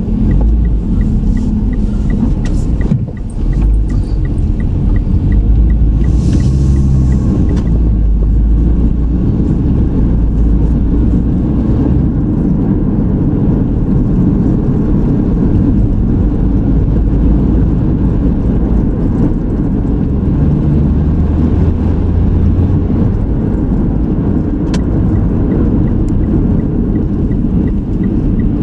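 A car driving, heard from on board: steady low engine and road rumble. A light, regular ticking sounds for the first several seconds and again near the end.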